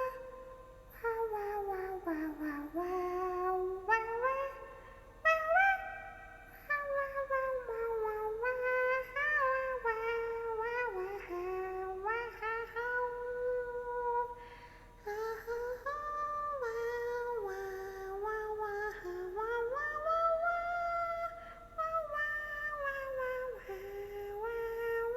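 A young woman's high voice singing wordlessly while tipsy, sliding and stepping between long held notes in a meandering tune.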